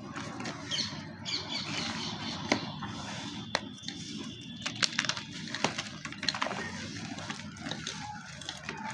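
Soft gym chalk being crushed: a dry crumbling rustle broken by irregular sharp crunches and cracks.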